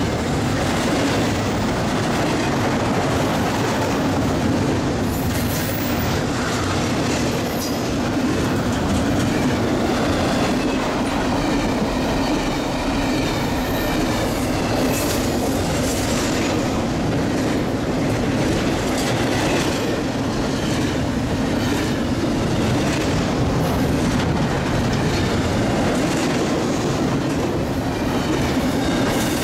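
CSX freight train's cars rolling past, with wheels clicking over rail joints and faint wheel squeal over a steady rumble.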